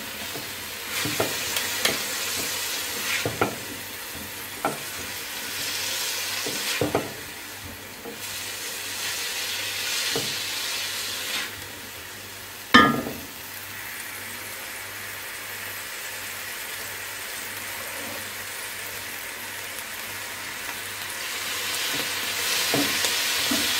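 Chicken, carrot and cabbage sizzling in oil in a nonstick wok over raised heat while being stir-fried, with a silicone spatula scraping and tapping against the pan. One sharper knock comes about halfway through, and the sizzling grows louder near the end.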